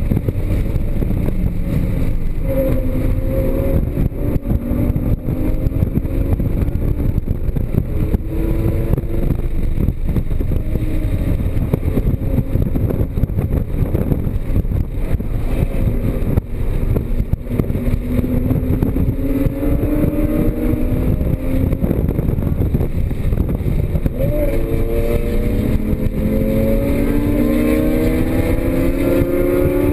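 Porsche Cayman GTS's flat-six engine driven hard on track, its note climbing in pitch under full acceleration several times and dropping back between, over a constant low rumble.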